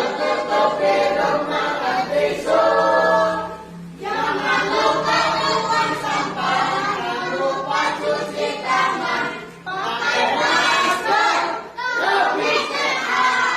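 A group of voices singing together in phrases, with short breaks about four and ten seconds in.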